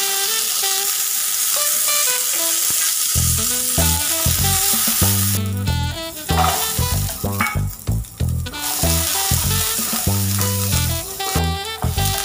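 Curry leaves, garlic and dried red chillies sizzling in hot oil in a metal kadai, under background music with a melody and, from about three seconds in, a steady bass beat.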